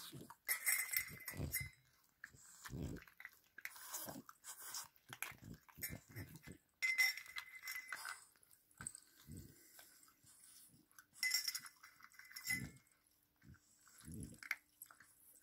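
Small dogs licking and eating dry kibble from a stainless steel bowl: irregular wet smacks and crunches, with several ringing clinks of the metal bowl.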